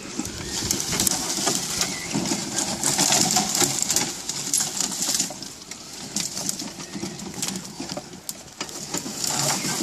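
Mobility-scooter electric drive running as a small homemade car creeps through dry grass and brush, with irregular rustling and crackling of vegetation brushing against it.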